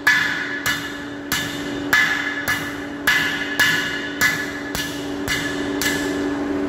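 A hand hammer strikes a chisel held on a metal bar at a steady pace of nearly two blows a second, about eleven blows in all. Each blow gives a short metallic ring as it marks the bar for bending. A steady low hum runs underneath.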